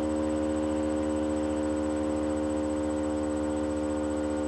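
Steady electrical hum and buzz with several held tones, from a microphone that is not working properly.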